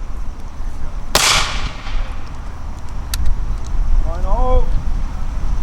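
A single black-powder shot from a Civil War–style .58-calibre rifle-musket about a second in, a sharp crack with a fading echo.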